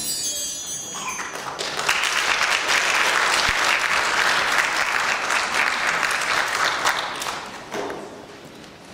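Audience applauding at the end of a song, building up within the first two seconds, holding steady, and dying away near the end.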